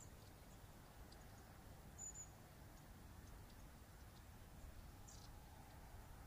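Faint, thin, high calls of long-tailed tits: a few short chirps at the start and about five seconds in, and a brief high whistle about two seconds in, against near silence.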